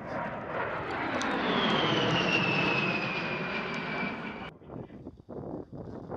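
A-10 Thunderbolt II's twin TF34 turbofan engines whining as the jet passes overhead, swelling to its loudest about two seconds in while the pitch slides steadily down. The sound cuts off abruptly about four and a half seconds in, leaving fainter, irregular noise.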